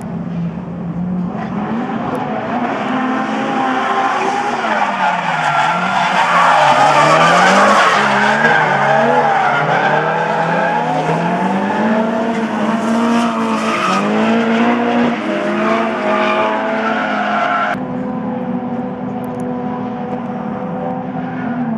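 Drift cars sliding through a corner in tandem: their engines rev up and down repeatedly on and off the throttle while the tyres squeal and skid. About eighteen seconds in the tyre screech drops away abruptly and the engines keep running.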